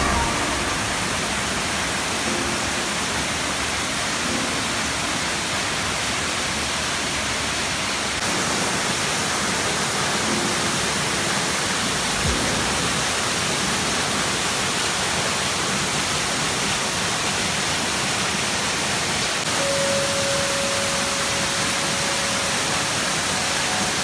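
Twin waterfall pouring into its plunge pool: a steady rush of falling water, a little louder from about eight seconds in.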